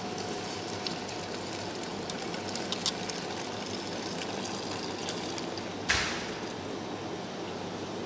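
Gas stove burner hissing steadily under a saucepan of water, with one sharp knock about six seconds in.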